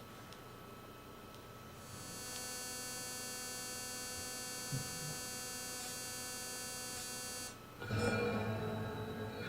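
Speakers fed by an Apple TV giving off a steady electrical buzz with many overtones. It starts about two seconds in and cuts off suddenly after about five seconds. It is the spurious noise that appears while navigating the Apple TV menus or fast-forwarding. A louder, more mixed sound follows near the end.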